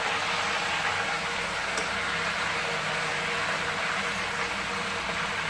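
Hot oil sizzling steadily and loudly around raw banana slices frying in a steel kadai, as the salted water added to the oil boils off; the sizzle means there is still water in the chips and they are not yet crisp.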